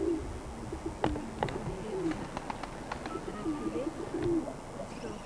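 Doves cooing: a repeated run of short, low, rising-and-falling notes, with a few light clicks among them.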